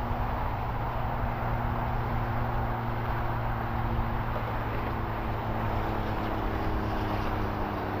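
Steady rumble of a distant engine or traffic: a low, even hum with a few steady tones over a broad noise, shifting slightly in pitch about two-thirds of the way through.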